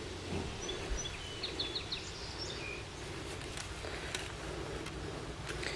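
Rural outdoor ambience with steady background noise. A small bird chirps several short high notes in the first couple of seconds, and a few faint clicks come later.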